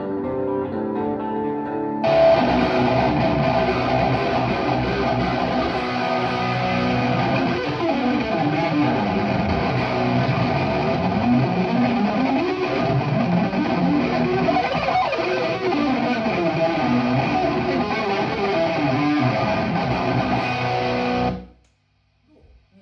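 Electric guitar played through a Friedman BE-100 tube amp head: about two seconds of separate picked notes, then a sudden switch to a louder, dense distorted tone, played on until it cuts off abruptly near the end.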